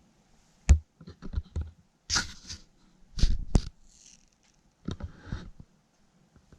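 Noise from an upstairs flat coming through the ceiling. A heavy thump about a second in is followed by a quick run of knocks and bangs, then several short, harsher bursts of noise.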